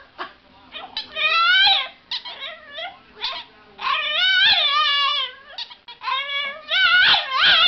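French bulldog making a string of drawn-out, howl-like 'talking' vocalizations. Each call wavers up and down in pitch, with short gaps between calls.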